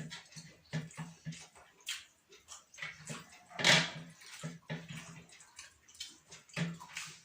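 Someone eating chicken biryani: wet chewing and lip-smacking in quick irregular clicks, with one louder burst a little before four seconds in.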